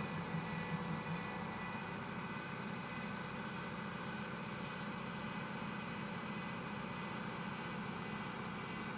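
Steady hum of machinery running, with a few constant high-pitched tones over an even noise; a low throbbing fades out about a second in.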